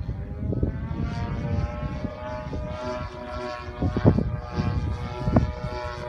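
Desert Aircraft DA-60 single-cylinder two-stroke gas engine of a large-scale RC aerobatic plane, spinning a 24x8 wooden prop in flight. Its note rises over the first second and then holds steady, with wind buffeting the microphone.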